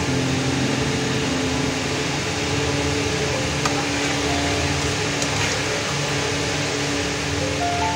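Hot oil sizzling steadily as urad dal vadas deep-fry in a steel kadhai, with the metal spatula clicking against the pan twice in the middle. Background music with long held notes plays over it.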